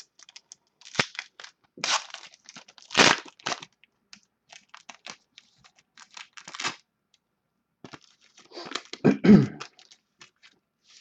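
A trading-card pack wrapper being torn open and crinkled as the cards are pulled out: a string of crackles and rustles, loudest about two to three and a half seconds in and again near nine seconds in.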